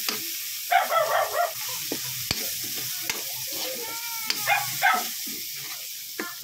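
Chopped chilies and onion leaves sizzling in hot oil in a wok, stirred with a metal spatula that scrapes and clicks against the pan. A steady frying hiss runs under it, with louder scrapes about a second in and again around four to five seconds.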